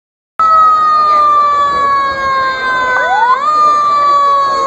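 Fire apparatus siren sounding: a loud tone that slowly falls, snaps back up in a quick rise about three seconds in, then slowly falls again.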